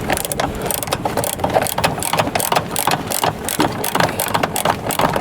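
Socket ratchet clicking rapidly as it is worked back and forth on a seatbelt bolt.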